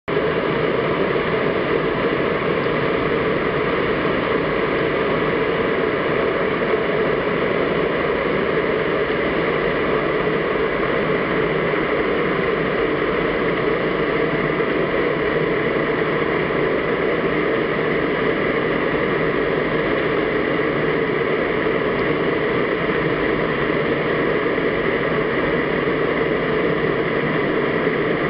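Steady underwater noise as picked up by a camera in a waterproof housing: an even hiss with no distinct events.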